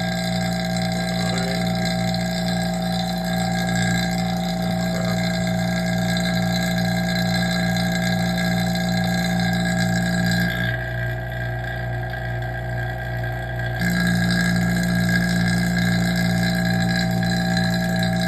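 Oil-filled vacuum pump running with a steady hum. A little past the middle its tone drops and thins for about three seconds, then comes back as before.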